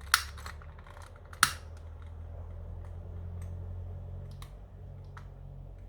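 Two sharp clicks about a second and a half apart as heat-shrink tubing is being shrunk over a soldered battery wire joint, followed by a low steady hum.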